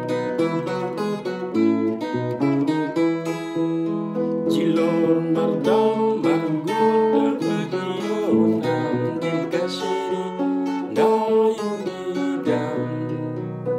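Telecaster-style electric guitar in a clean tone, plucked with the fingers, playing a repeating melodic pattern of single notes and chords.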